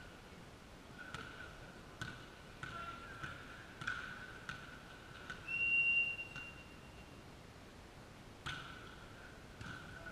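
Referee's whistle blown once in a large sports hall, a single high tone held for about a second and a half near the middle, signalling play in a volleyball match. Several sharp knocks of the ball being bounced and struck come before and after it.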